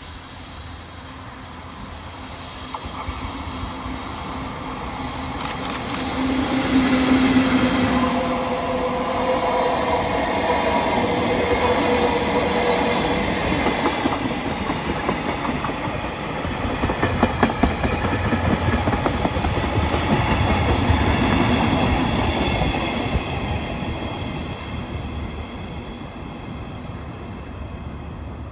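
A freight train of empty container flatcars and hopper wagons hauled by an EF65 electric locomotive, passing close by: wheels clattering rapidly over the rail joints, with steady high ringing tones from the wheels on the curve through the middle of the pass. It swells as the train comes by and fades as the last wagons pull away.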